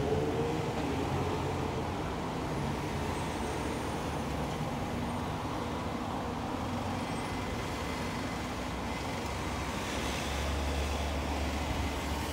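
Street traffic moving slowly past: car and bus engines and tyres making a steady noise. Right at the start a vehicle's engine rises in pitch as it pulls away, and about ten seconds in a deeper engine rumble comes up briefly.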